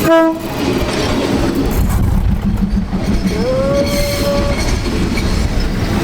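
Diesel train on the Maeklong railway line running with a steady low rumble. It gives a short horn blast at the start, and a few seconds later a longer tone that rises and then holds for about a second.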